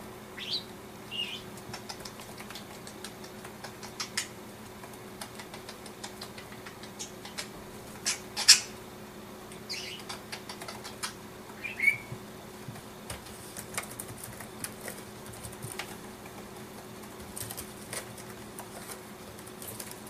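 Pet budgerigar giving a few short chirps, two in the first second or so and two more around the middle, among scattered light clicks and taps. The loudest sound is a sharp tap a little before halfway.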